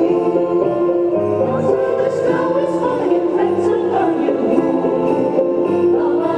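Women's choir singing in several parts, holding long chords that change every second or so.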